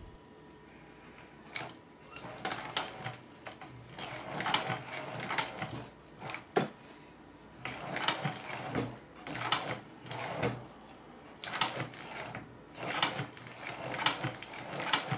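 Post-bed industrial sewing machine stitching leather, a rapid clatter of needle strokes in short runs that start and stop every second or so.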